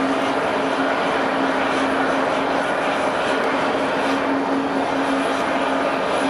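An airliner's engines running steadily: a constant rushing noise with a steady drone underneath.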